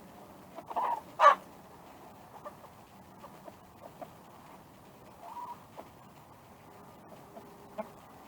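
Chickens clucking in a coop, with a loud, sharp squawk about a second in and a softer call around five seconds in, between scattered small ticks.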